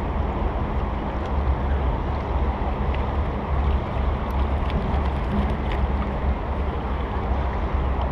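Steady rush of fast-flowing river water, with wind rumbling on the microphone.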